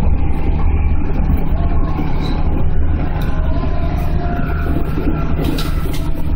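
Running noise inside the cab of a JR 211-series electric train (motor car KuMoHa 211-5019) moving along the line: a steady low rumble of traction motors and wheels on rail, with faint steady whining tones. A brief hiss comes a little before the end.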